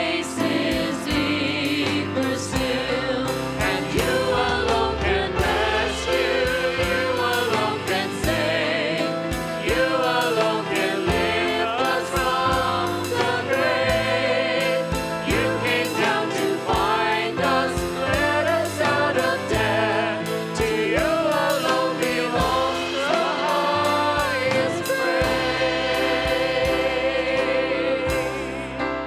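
Voices singing a closing worship song together, with instrumental accompaniment and a steady beat.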